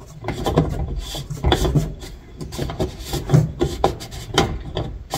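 Fuel-tank lock ring being set and worked around a fuel pump module by hand: irregular scraping and rubbing with frequent small knocks and clicks.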